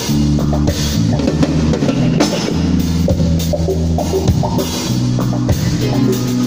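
Live rock band playing through the stage PA: a Canopus drum kit with bass drum and cymbal crashes over held electric bass guitar notes.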